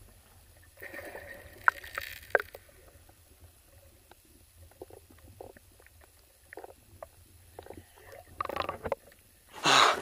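Muffled underwater sound from a camera held under the water: gurgling and sloshing against the housing with scattered small clicks and knocks over a steady low rumble, louder in the first couple of seconds and again briefly near the end.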